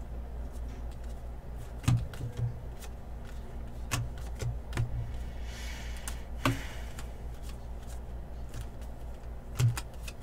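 Baseball trading cards being handled and flicked through, with scattered taps and clicks on the table and a brief rustle about six seconds in, over a steady low hum.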